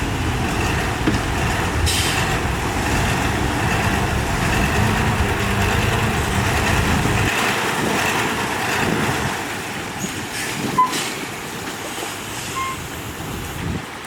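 Heavy dump truck's engine running with a low rumble that drops away about seven seconds in, leaving a lighter noisy background with a few short clicks.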